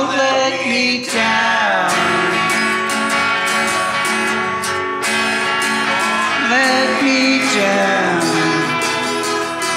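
Rock song with electric guitar over a full band track with drums, and a singing voice with sliding notes.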